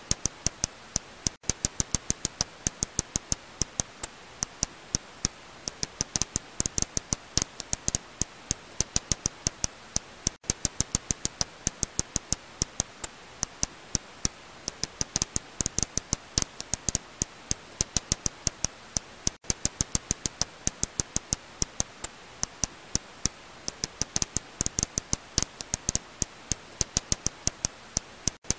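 Serotine bat echolocation calls made audible by a bat detector: a rapid, uneven run of sharp clicks, several a second. A brief break comes about every nine seconds.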